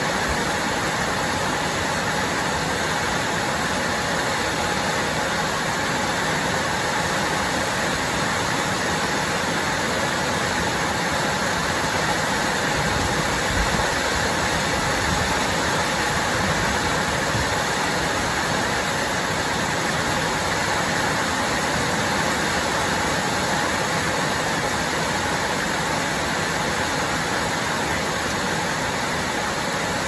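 Heavy rain falling steadily in a dense, even hiss that neither builds nor eases.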